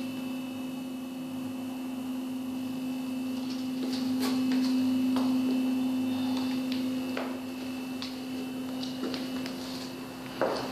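A steady electrical hum, a little louder midway, with a few faint ticks over it.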